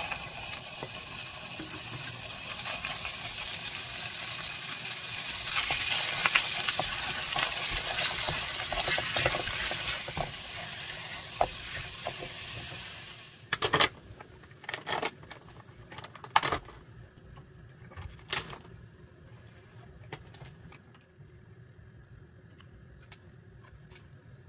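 Pork shoulder pieces sizzling as they fry in a hot pan, stirred with a spatula. About halfway through the sizzle drops away suddenly, followed by a few sharp clacks of utensils on the pan and quieter handling.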